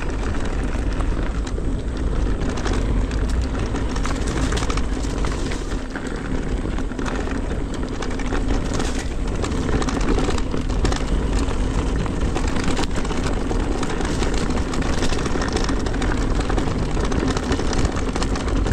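Cube Stereo Hybrid 160 electric mountain bike ridden fast down a rough trail: a steady rumble of riding noise with frequent small rattles and knocks from the bike. The rattle is clearly less than before, and the rider notes it still rattles somewhat, since its clattering Fox Float X rear shock was swapped for a RockShox Deluxe Select+.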